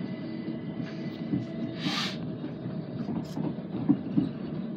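Inside a moving passenger train: the steady rumble of the wheels running on the rails. A short burst of hiss comes about two seconds in, and a couple of sharp knocks follow a little after three seconds.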